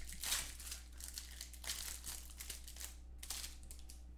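Crinkling plastic wrapping of a trading-card box or pack being handled and opened: a series of rustles, loudest near the start and again about two and three seconds in, over a steady low hum.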